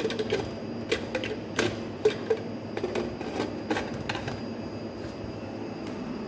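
Clicks and light metallic knocks of a gold thermos coffee flask's screw-on lid being turned and seated by hand, about a dozen irregular ticks over the first four seconds. After that only a steady low background noise remains.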